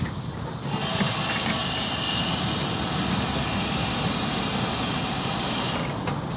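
Steam tank locomotive No 4270, a GWR 2-8-0 heavy freight tank, letting out a loud, steady hiss of steam over the low rumble of the moving goods train. The hiss starts abruptly about a second in and cuts off just before the end.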